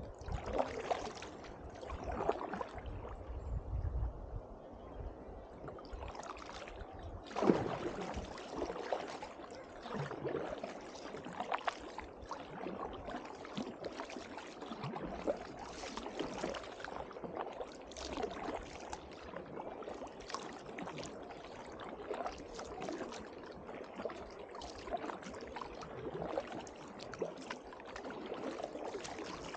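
Double-bladed kayak paddle strokes, the blades dipping into calm river water with a splash and drips about every second and a half, alternating sides. There is a louder splash about seven seconds in.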